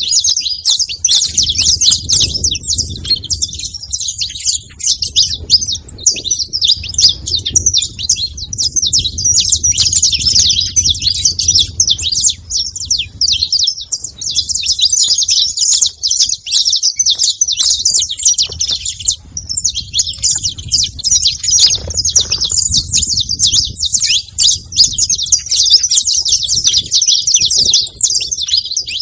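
A flock of saffron finches chirping continuously at a feeder, many quick high calls overlapping, with a faint low rumble underneath.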